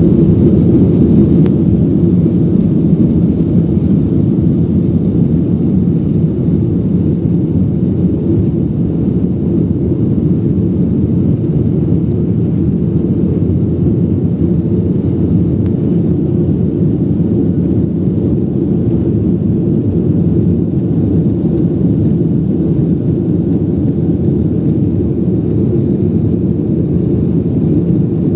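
Jet engines of a Ryanair Boeing 737 at takeoff power, heard from inside the cabin as a loud, steady, deep rumble through the takeoff roll, liftoff and climb-out. The rumble eases slightly over the first few seconds.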